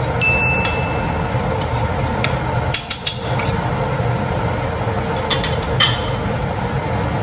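A metal utensil clinking and knocking against a cooking pan while shallots and garlic sweat in oil. There is a brief ringing near the start and small clusters of knocks about three seconds in and again near six seconds, over a steady background noise.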